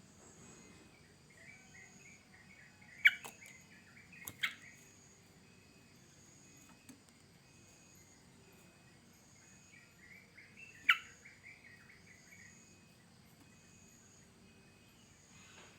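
Yellow-vented bulbul (trucukan) singing: two bubbly, warbling phrases several seconds apart, each cut through by one or two sharp, loud notes.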